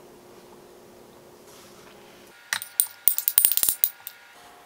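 Metal spoon clinking against a ceramic plate as ingredients are scraped and knocked off into a food processor bowl: a quick run of sharp clinks with a short ring, starting about two and a half seconds in and lasting just over a second.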